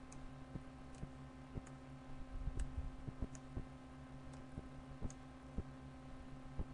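Computer mouse buttons clicking now and then at irregular intervals while toolbar icons are dragged, over a low steady electrical hum.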